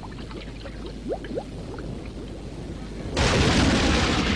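Crude oil bubbling from a seep in the ground, with many short rising plops. About three seconds in, a sudden loud, even rushing noise takes over.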